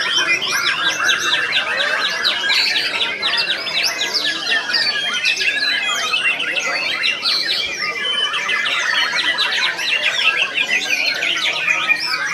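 White-rumped shama (murai batu) singing a dense, rapid run of varied chirps, squawks and sweeping whistles without a break.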